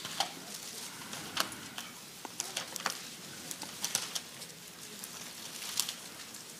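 Thin Bible pages being turned, a scatter of soft paper rustles and flicks.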